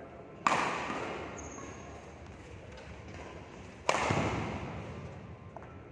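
Two sharp racket strikes on a badminton shuttlecock, about three and a half seconds apart, each ringing on in the echo of a large sports hall.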